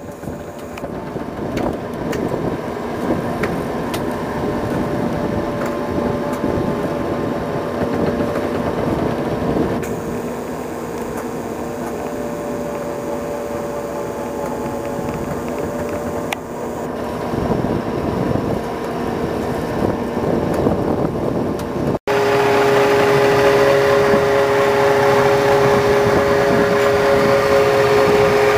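LEI Products BB500 wood-chip bio-burner running: a steady mechanical hum with two held tones over a rough rushing noise. About three-quarters of the way through it jumps louder and the held tones grow stronger.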